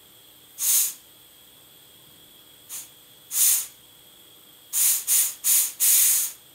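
Short hisses of compressed air from a tire inflator chuck fed in bursts through a tire valve into an aerosol can, pressurising it from about 20 toward 30 psi. One hiss about a second in, a faint one and another near the middle, then four in quick succession near the end.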